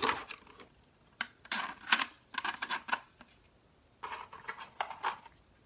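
Hard 3D printed plastic interior pieces being handled and fitted together: quick clicks, taps and rattles in three short bursts.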